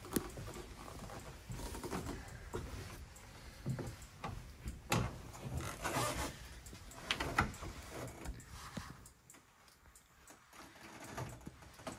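Footsteps and knocks on wooden steps and hatch fittings as a person climbs down into a boat's engine room, with clothes and hands rubbing against the hatch. A few sharper knocks about five and seven seconds in, then it goes quieter for a couple of seconds.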